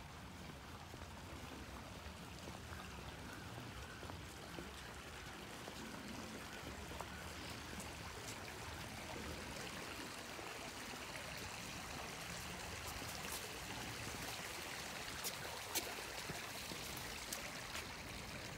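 River water running in the channel beside the path, a steady rush that grows louder toward the middle and later part, with a few faint clicks near the end.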